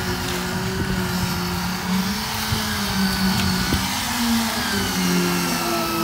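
Steady motor hum of a concrete poker vibrator being worked in the freshly poured wet slab, wavering slightly in pitch.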